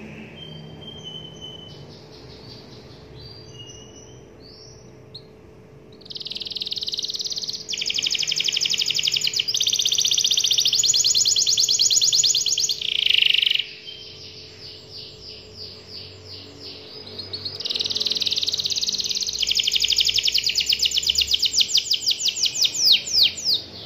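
Domestic canary singing: soft scattered twitters, then two long, loud rolling trills of very rapidly repeated high notes, each lasting several seconds, the first about six seconds in and the second after a short pause.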